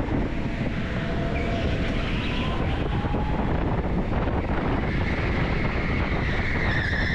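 Electric go-kart running at speed, heard on board: a steady rumble and hiss of tyres and motion with a faint electric motor whine, and a higher whine that grows stronger about five seconds in.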